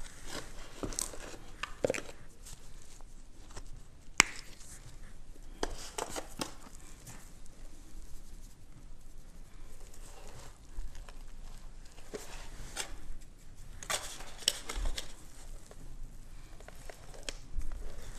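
Hands patting and rubbing dry seasoning onto a raw beef brisket in a disposable aluminium foil pan, the foil crinkling under the handling, with scattered light taps and one sharp click about four seconds in.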